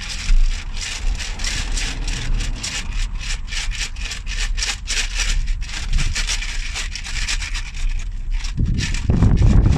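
Dense crackling and scraping noise, like something rubbing, with a low rumble coming in strongly about nine seconds in.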